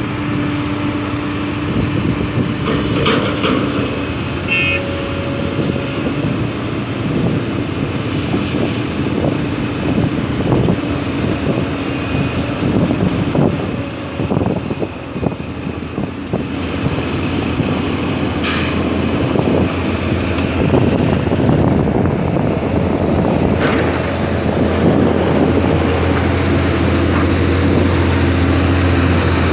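Diesel engines of heavy earthmoving machinery, dump trucks and a crawler excavator, running continuously. There are a few brief sharp squeaks or clanks along the way. Near the end a dump truck's engine drone grows louder as it drives close by.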